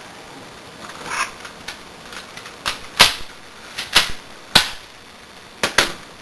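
Irregular sharp taps and knocks of objects being handled on a hard surface during food preparation, about eight in all, the loudest three around the middle.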